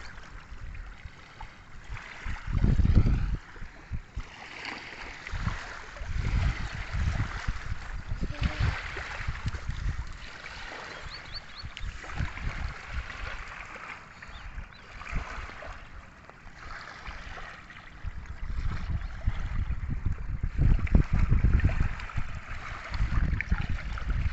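Water splashing and gurgling, with irregular low thumps that come in clusters, strongest about three seconds in and again near the end.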